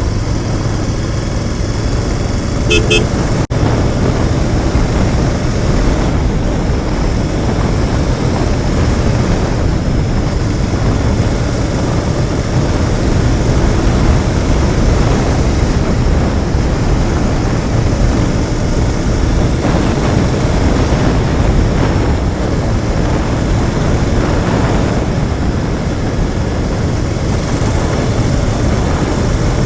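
Royal Enfield Continental GT 650's 648 cc parallel-twin engine running on its stock exhaust, cruising steadily on the road. A short horn toot sounds about three seconds in.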